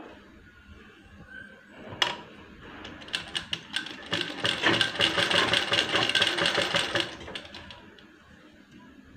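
Domestic straight-stitch sewing machine sewing a seam through blouse fabric and its lining: a sharp click about two seconds in, then a run of fast, even needle strokes that starts a second later, is steadiest in the middle and stops after about four and a half seconds.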